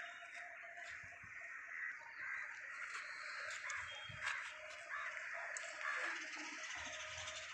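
Crows cawing over outdoor background noise, with a faint steady hum underneath.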